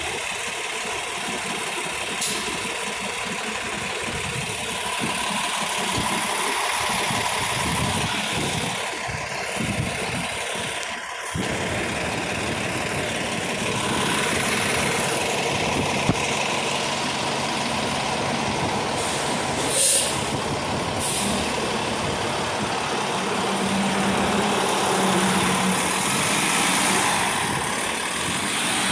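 City transit bus engines running at a curbside stop, a steady idle with street traffic noise, and one short loud air hiss about 20 seconds in.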